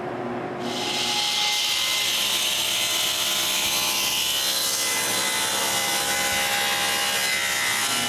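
Table saw ripping a piece of maple lengthwise. The blade spins free with a steady hum for about half a second, then the cutting noise comes in and holds steady as the board is fed through.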